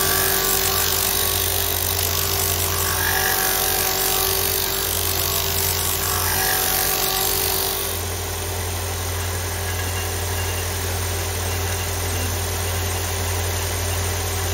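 Allwin MM493C belt and disc combo sander running with a steady motor hum while a wooden block is pressed against its spinning 125 mm sanding disc, giving a gritty rasp of abrasive on wood. About eight seconds in the rasp eases a little and the motor runs on steadily.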